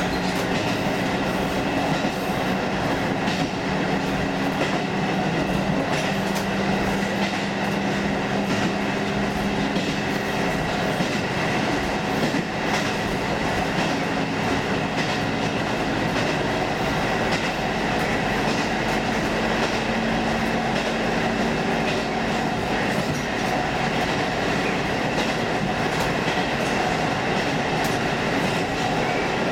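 Diesel railcar running, heard from inside the cab: a steady engine hum with scattered clicks and rattles.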